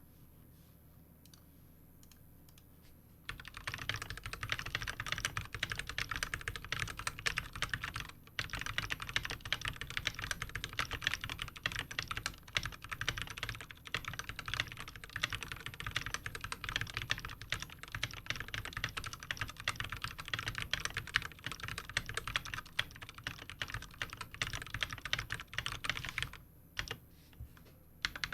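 Fast typing on a GK61 60% mechanical keyboard with lubed Durock T1 tactile switches and PBT doubleshot keycaps. It starts about three seconds in, breaks briefly about eight seconds in, and thins to scattered keystrokes near the end.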